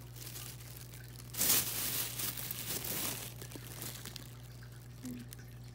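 Clear plastic wrapping on a pack of firework tubes crinkling as it is handled, loudest about a second and a half in, then fading to lighter rustles.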